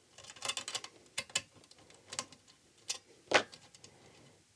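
Hand tools clicking and clinking as they are picked up and handled, a wrench among them: a string of light, irregular taps with one louder clink a little after three seconds in.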